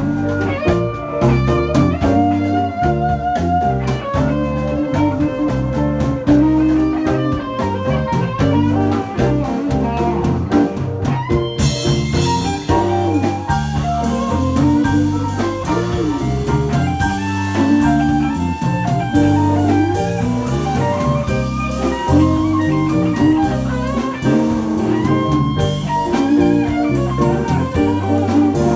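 Live blues band playing: an electric guitar lead with bent notes over bass and drums. The cymbals come in louder about twelve seconds in.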